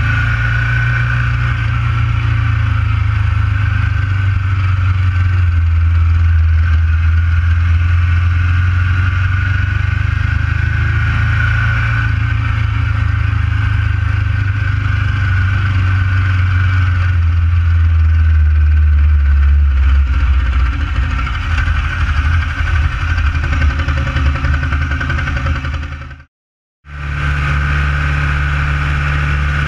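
Ducati 900 SS air-cooled L-twin engine running under way, heard from on the bike. Its note sinks slowly over the first twenty seconds, cuts out completely for about half a second near the end, then comes back steady at a higher pitch.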